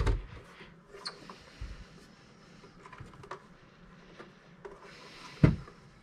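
Handling noise of a plastic Synology DS220j NAS enclosure turned over in the hands: scattered light clicks and taps on the casing. A dull thump comes at the start and a louder one about five and a half seconds in.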